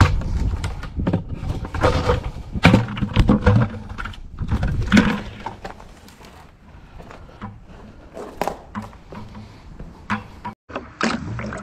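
A plastic bucket and its snap-on lid being handled: a run of knocks and clacks over the first five seconds, then quieter, scattered scuffs of footsteps on dirt and gravel.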